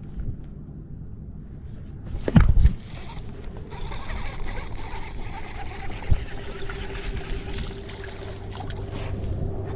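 A loud knock about two seconds in, then a small electric trolling motor running with a steady hum and whine, with water gurgling around the boat.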